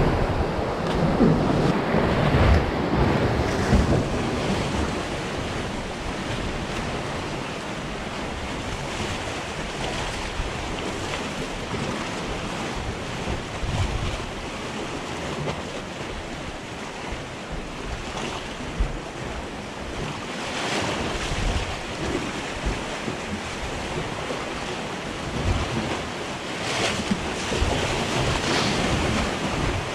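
Sea surf washing and surging among concrete tetrapod blocks, with wind gusting on the microphone, the wind strongest in the first few seconds.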